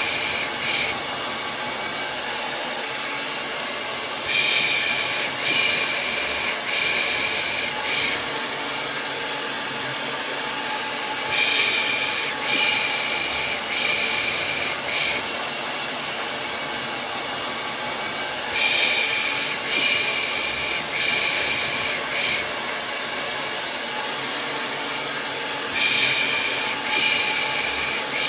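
Hair dryer running steadily, with runs of three or four short "pış pış" shushes, the hushing sound used to lull a baby to sleep, about a second apart. The runs come back roughly every seven seconds.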